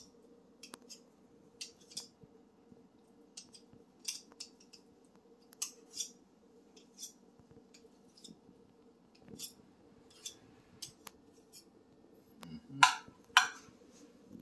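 Metal spoon scraping and tapping against glassware while scooping and shaping mashed potato: scattered light clicks and scrapes, then two louder glass clinks a moment apart near the end.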